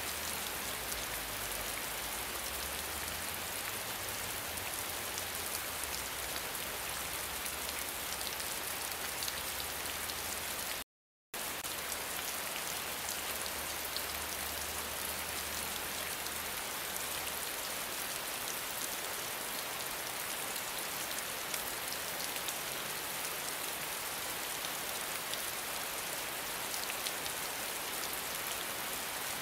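Steady rain: an even hiss full of fine drop patters, with a faint low rumble beneath it for the first half. The sound cuts out completely for a split second about eleven seconds in.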